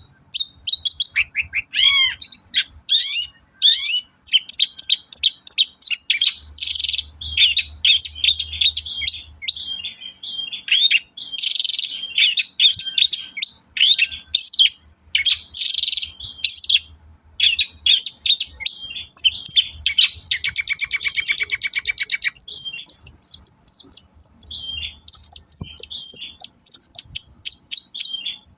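Long-tailed shrike (cendet) singing a loud, rapid, varied song of chirps and whistles with barely a pause, broken about two-thirds of the way through by a couple of seconds of harsh buzzing trill.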